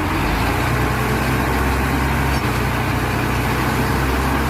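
Truck engine idling steadily, an even low-pitched running sound with no change in speed.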